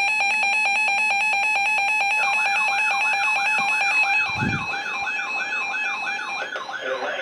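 Electronic emergency alert tones: a rapid pulsing two-pitch beep, joined about two seconds in by a warbling tone that rises and falls about three times a second. The beeping stops near the end while the warble continues, and a brief low thump comes about four seconds in.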